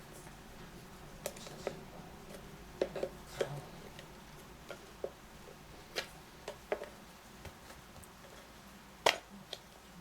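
Irregular sharp clicks and light metallic knocks of small carburetor parts and hand tools being handled and set down while the carburetor of a Honda FG201 tiller is taken apart for cleaning. The loudest knock comes near the end.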